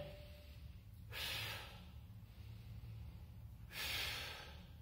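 A man's strained breathing as he holds a plank: two sharp, hissing exhales about two and a half seconds apart.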